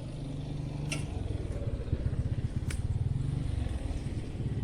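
A motor vehicle engine running steadily with a low hum that grows a little louder after about a second, with a couple of sharp clicks.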